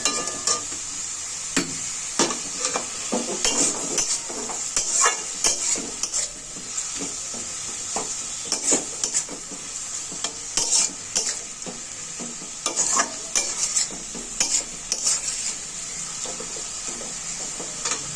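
Finely chopped onions and tomato frying in oil in a pan, with a steady sizzle, while a spatula stirs them, scraping and knocking against the pan at irregular moments.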